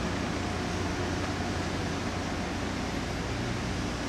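Steady low engine drone and hiss from the heavy-haul road transporter carrying a Shinkansen car as it moves slowly past close by.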